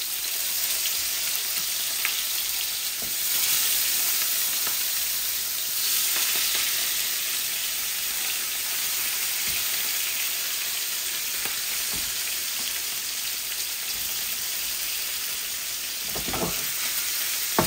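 Rohu fish steaks, rubbed with turmeric and salt, sizzling steadily as they fry in hot oil in a pan, with small crackles. A few light knocks come near the end.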